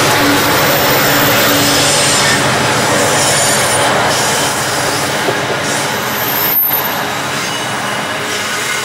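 Grain hopper wagons of a freight train rolling past close by: steady wheel-on-rail rumble and rattle. The hum of the departing diesel locomotives fades out in the first couple of seconds, and about six seconds in there is a brief high wheel squeal and a sharp knock.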